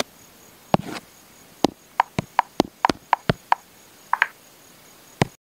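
A series of sharp taps and knocks, about a dozen at irregular spacing and quickest in the middle, before the sound cuts off abruptly.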